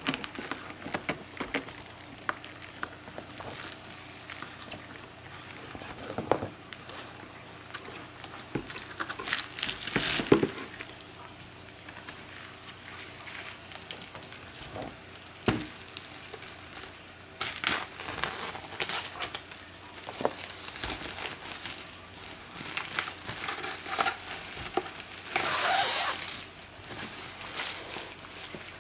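Plastic wrapping crinkling and tearing as it is pulled off a cardboard cat scratcher, in irregular bursts of rustling with the longest spell near the end.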